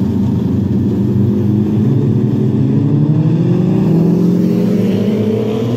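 Several sport motorcycle engines running together as a group of superbikes rides past, rising in pitch from about two seconds in as they accelerate.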